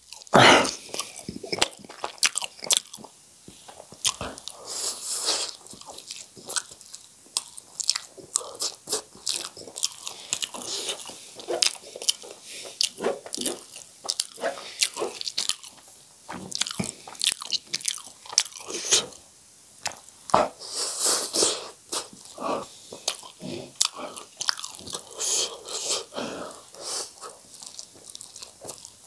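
Close-miked mouth sounds of eating spicy instant noodles: continual wet chewing with many short smacks and clicks, and now and then longer slurps as noodles are drawn in.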